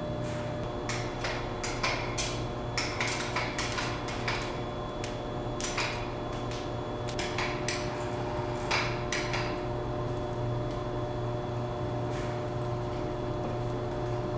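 Irregular metal clinks and knocks of chain links and hooks being handled while rigging a load, thickest in the first ten seconds and sparser after, over a steady hum.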